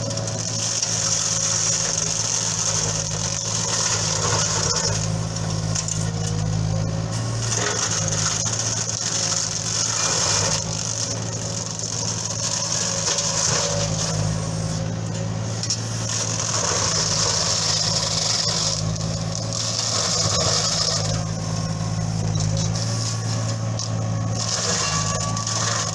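JCB 8035 ZTS mini excavator's diesel engine running steadily under load while its arm-mounted hydraulic flail mulcher spins and shreds small trees, a high hiss that swells and drops away in stretches of a few seconds.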